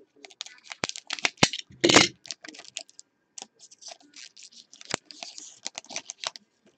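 Foil trading-card pack crinkling and being torn open, with the cards inside slid out: a run of quick crackles and clicks, loudest about two seconds in.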